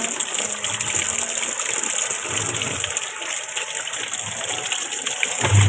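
Water from a hose pouring into the plastic tub of a top-loading washing machine, a steady gushing splash as the tub fills.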